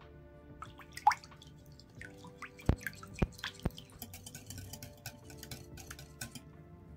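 Irregular light clicks and taps, with two sharper knocks a little under halfway through, over soft background music.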